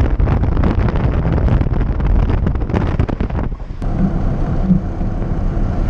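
Heavy wind buffeting the microphone held out of the window of a moving truck, with low rumbling road noise. About three and a half seconds in it cuts to a steadier drone of engine and road noise from inside the truck's cab.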